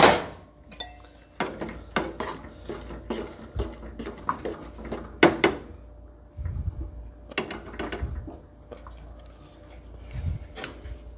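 A fork clinking and scraping in a small metal saucepan of rice as it is stirred, with irregular knocks and clatter.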